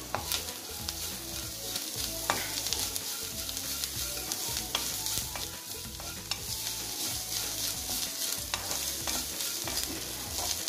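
Chopped onions and freshly added grated coconut frying in hot oil in a pan, sizzling steadily while a wooden spatula stirs them, with scattered light scrapes and taps against the pan.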